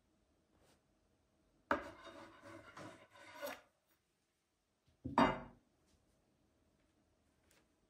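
Hands spreading and smoothing a thin sheet of yeast dough over an oiled sheet on a wooden table. There is a soft rubbing that lasts about two seconds, then a single short knock about five seconds in.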